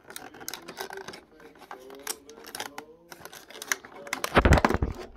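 Cardboard scratching and tearing as fingertips pry open a perforated door on a cardboard advent calendar box. From about four seconds in there is much louder crackling and rustling as the box and the torn flap are handled.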